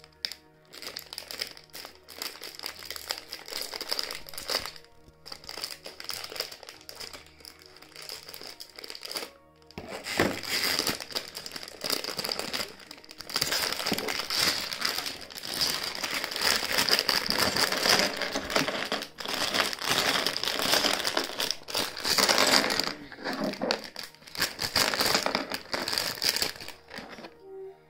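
Clear plastic bag of LEGO bricks crinkling as it is handled and opened, with the bricks tipped out onto the table near the end. The crinkling gets louder from about ten seconds in, over background music.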